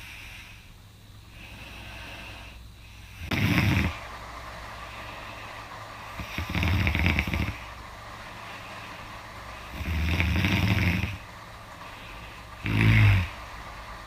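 A person snoring loudly through an open mouth: four snores roughly three seconds apart, each lasting from under a second to about a second and a half, over a steady low hum.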